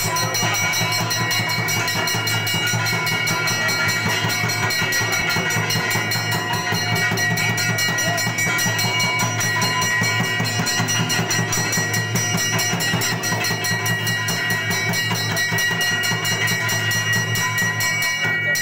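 Large barrel drums played by hand in a fast, unbroken dance beat, with steady high ringing tones over the strokes.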